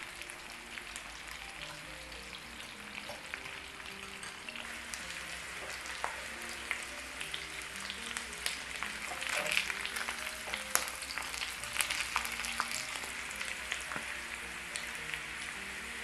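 Sliced potatoes frying in oil in a nonstick pan, a steady sizzle with crackling pops, turned with a silicone spatula. The crackle grows busier about halfway through. Faint background music plays under it.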